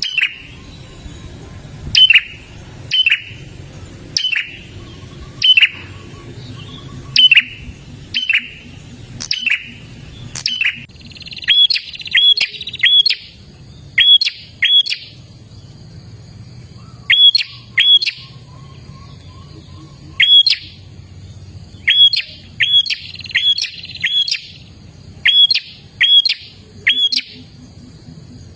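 Prenjak (prinia) singing: loud, sharp, downslurred chirps repeated about once a second, then coming in quick pairs and triplets from about ten seconds in.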